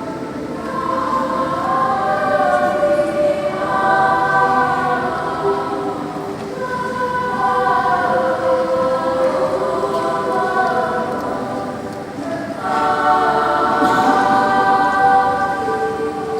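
Children's mixed choir singing in sustained, multi-part phrases, with a brief pause just before three-quarters through, after which a louder phrase begins.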